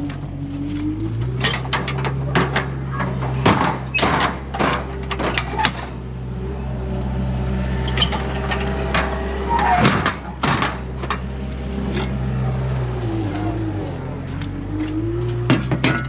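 A farm loader's diesel engine running under hydraulic load, its whine dipping and recovering twice, while the heavy load it is lifting knocks and clanks in several clusters of sharp hits.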